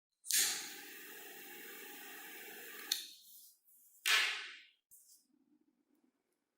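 Aerosol spray can spraying paint in two bursts: a steady hiss of about two and a half seconds, then a short burst about four seconds in.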